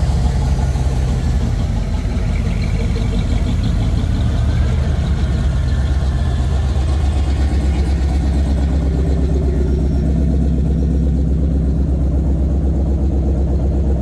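Engines of hot rods and a pickup rumbling at low speed as they cruise past one after another, a steady deep rumble that grows heavier in the second half as the next vehicles pull up close.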